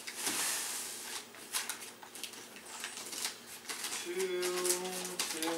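Christmas wrapping paper being torn and crumpled as a present is unwrapped, a busy crackling rustle. About four seconds in a low, steady voice-like sound lasts about a second, and it comes back briefly near the end.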